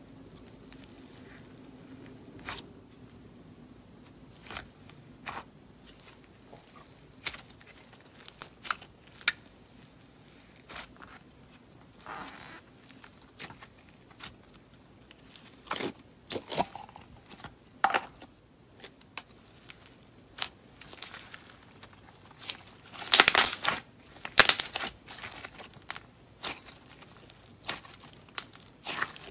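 Clay slime (a white slime topped with cookie-dough-textured clay) being poked, torn apart and stretched by hand, giving scattered soft crackles and pops. A louder run of crackling comes near the end as the slime is pulled apart.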